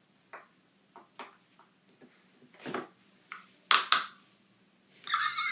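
Silicone pop-it fidget toy being pressed, its bubbles popping in about eight sharp, irregularly spaced clicks. A short rustle near the end.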